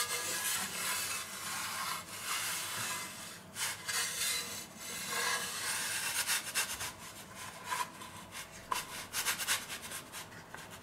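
Sheet-metal pizza peels scraping and sliding over a floured wooden cutting board as a raw pizza is worked from one peel onto another. The scraping is irregular, with a run of short, quick scrapes in the second half.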